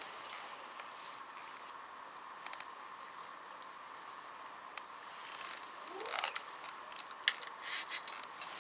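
Light, scattered clicks and ticks of fishing tackle being handled as a long float rod is lifted and worked, getting busier in the second half.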